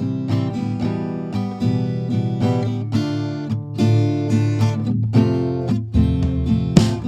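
Background music: acoustic guitar played in a rhythmic strumming pattern of repeated chords.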